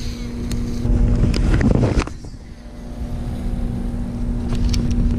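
Steady hum of a small boat's electric trolling motor over a low rumble; the hum fades out about two seconds in and comes back near the end, with a few short clicks.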